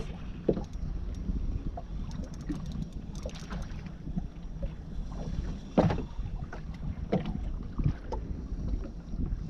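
Wind rumbling on the microphone aboard a small boat at sea, with scattered short clicks and knocks; the loudest knock comes about six seconds in.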